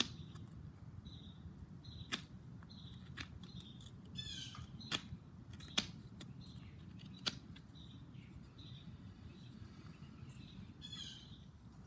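Pocket knife whittling a small hardwood wedge: faint cutting with a few sharp clicks as the blade bites and slivers come away. Birds chirp faintly in the background.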